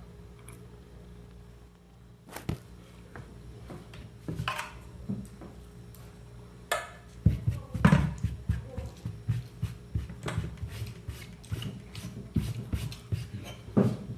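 Cutlery knocking and scraping against a plate during a meal, scattered clicks at first and a busier run of quick knocks from about halfway through.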